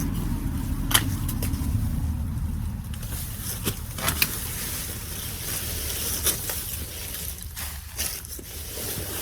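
Loppers snipping through Pittosporum branches, with woody snaps and clicks every second or so amid the rustle of leafy branches being pulled about. A steady low rumble runs underneath.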